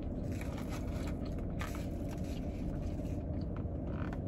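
Steady low hum of a car with its engine running, with soft chewing of a roast beef sandwich and a few small crinkles of its paper wrapper on top.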